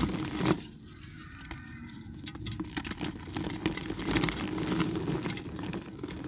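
Dry white dirt being crumbled in a clay pot: a continuous dry crunching and crackling, loudest in the first half-second.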